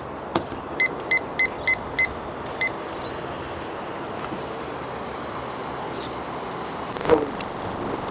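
Digital kitchen timer beeping six short times as its buttons are pressed to set it, just after a click. About seven seconds in comes a single knock, the loudest sound, all over a steady rushing noise.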